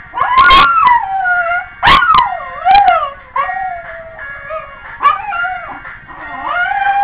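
Scottish terrier howling along to a song, a run of wavering howls that slide up and down in pitch, loudest in the first three seconds and again near the end, over music playing in the background.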